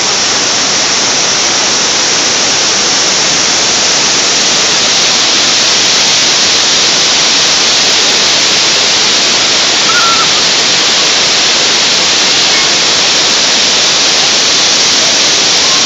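Ornamental fountain running, its many water jets spraying and splashing back into the basin: a loud, steady rush of falling water.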